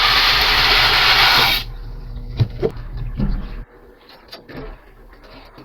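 Dry boxed macaroni poured into a pot of boiling water: a loud rushing rattle lasting about a second and a half, then a few light knocks. A low steady hum stops about three and a half seconds in.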